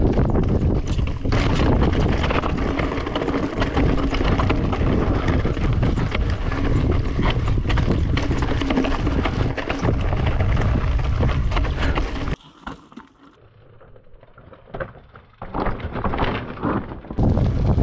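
Mountain bike riding downhill on a rough trail: wind buffeting the microphone, with tyres and frame rattling over the ground in many short knocks. The noise drops suddenly to a much quieter stretch about twelve seconds in, then comes back loud shortly before the end.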